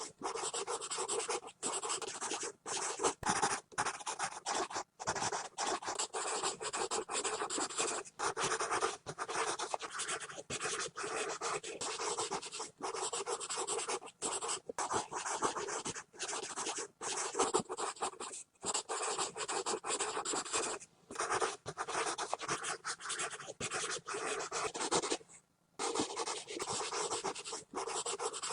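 A pencil scribbling fast on paper: continuous scratching strokes broken by brief lifts, with a pause of about a second near the end.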